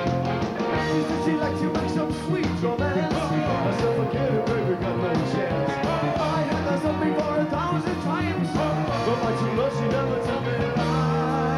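Rock band playing live in an instrumental passage between vocal lines, with drums, bass, electric guitar and keyboards.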